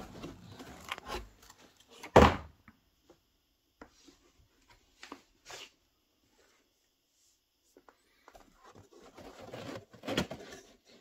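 Cardboard hat box being opened and handled: rustling and scraping of cardboard, one sharp knock about two seconds in, a few faint clicks, then more rustling near the end.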